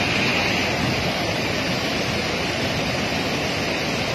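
A large waterfall swollen with brown floodwater, giving a steady, unbroken rush of falling water.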